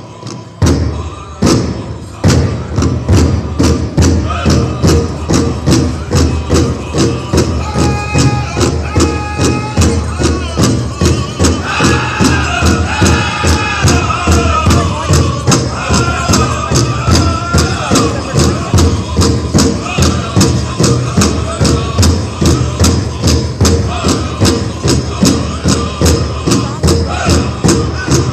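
A powwow drum group playing a song for the dancers. The big drum is struck in unison: a few opening strikes, then within about two seconds a steady beat of about two and a half strokes a second. Voices sing high over the drum, most strongly in the middle of the stretch.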